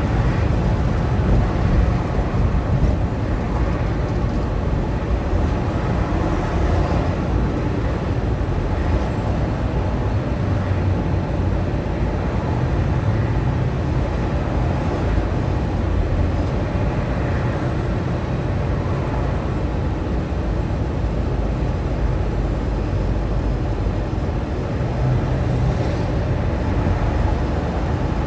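Semi-truck under way: steady engine and road noise with a low drone.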